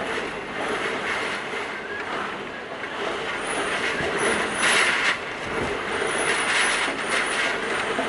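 Typhoon wind and driving rain blowing hard, gusting strongest about four and a half to five seconds in, with a high thin whistle over the top during the gusts and a faint steady hum underneath.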